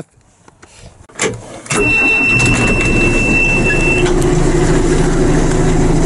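Diesel engine of a John Deere 310 backhoe starting up about a second and a half in and then running steadily. A steady high beep sounds with it for about two seconds.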